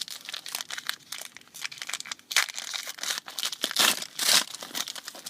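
Rustling and crinkling of basketball trading-card packaging as cards are handled and flipped through, with a few louder crinkles about two and a half and four seconds in.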